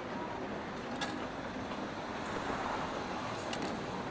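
Steady hiss of rain falling against windows, with a few light clicks about a second in and again near the end.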